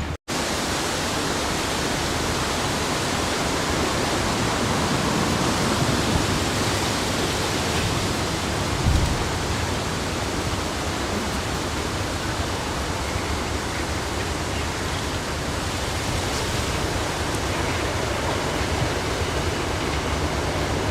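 Steady rushing hiss of heavy rain, without a break.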